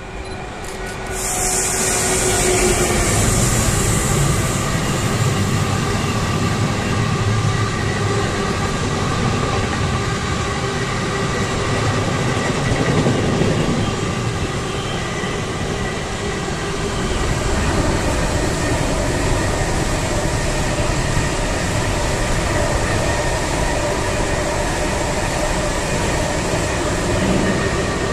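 A long freight train of loaded double-deck car-carrier wagons rolling past behind an electric locomotive: a steady rumble of wheels on rail with faint steady ringing tones. A strong hiss about a second in lasts a few seconds as the locomotive goes by. Near the end an ICE high-speed train passes on the other track.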